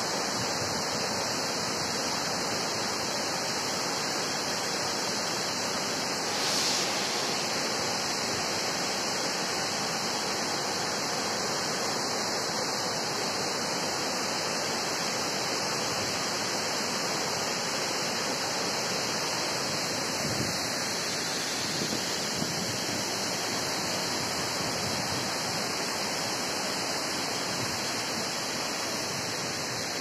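Shaki waterfall pouring over its rock face: a steady, unbroken rush of falling water.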